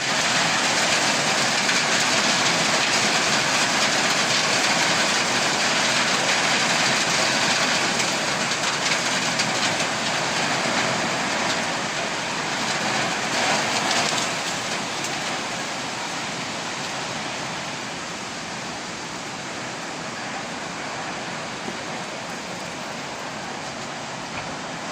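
Heavy rain pouring down, a steady hiss that eases off gradually after about halfway.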